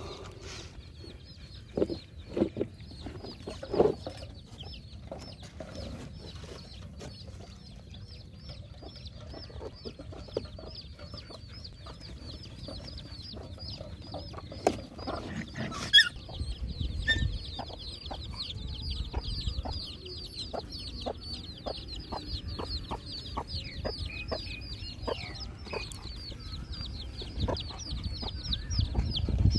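Chickens clucking in short calls, a couple a second and thicker in the second half, over a fast, steady high-pitched chirping and a few scattered knocks.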